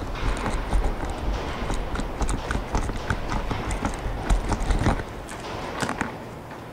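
Irregular clicks, knocks and rubbing from hands working at an aircraft's oxygen filler port in a carpeted cabin floor, close to the microphone, with low thumps; the handling eases off about five seconds in.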